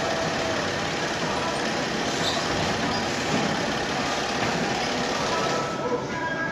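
Granulated sugar pouring from a bagging-machine hopper spout into a sack, a steady rushing hiss that cuts off shortly before the end, over the steady hum of factory machinery.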